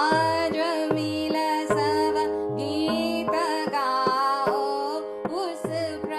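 Indian classical-style music: a steady drone under a melodic line that bends and glides between notes, with a drum whose deep strokes slide down in pitch about twice a second.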